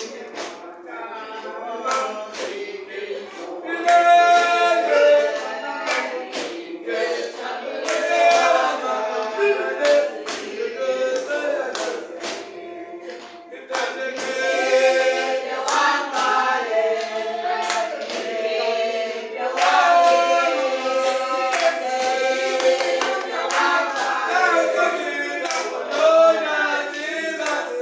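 Church congregation singing a hymn together, with hand claps keeping time.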